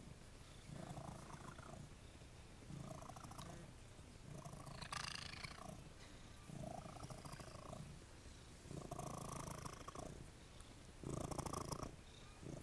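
Turkish Angora cat purring while being stroked. The purr swells and fades with each breath, about every two seconds, and is loudest near the end, with rustling of fur.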